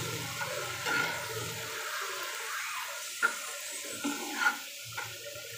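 Wet, freshly washed spinach and green peas sizzling with a steady watery hiss in a hot pan as they are stirred with a spatula. A few sharp scrapes and taps of the spatula on the pan come in the second half.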